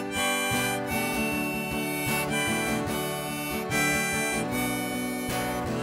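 Background music: an instrumental passage of a song, with no singing.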